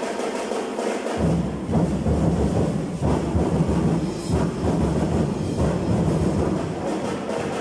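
Loud festival dance music carried by deep, heavy drumming; the deep drumbeat comes in about a second in.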